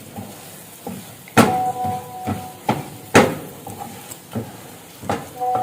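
Metal cooking utensil knocking against a frying pan while the egg is scrambled: a run of irregular sharp clanks, two of them ringing on briefly.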